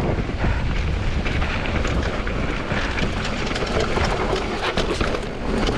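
Commencal Supreme DH downhill mountain bike rolling fast over a rocky trail: steady tyre noise on rock and dirt with a constant clatter of small knocks from the chain and frame.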